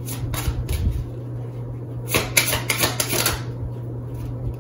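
Quick clatter of tarot cards being handled and shuffled, in two short runs of clicks and flicks. A steady low hum lies beneath.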